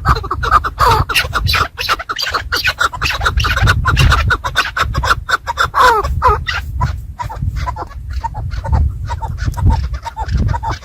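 Chukar partridges calling: rapid, repeated clucking notes over a steady low rumble.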